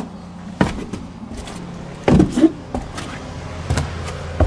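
Footsteps on old wooden stairs: several unevenly spaced knocks of shoes on the steps, with a brief creak of the boards about two seconds in.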